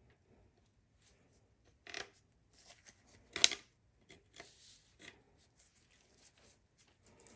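Metal-on-metal clinks and scrapes as a piston and connecting rod are worked out of a Chevy 350 V8's cylinder bore, with one sharp metallic knock about three and a half seconds in.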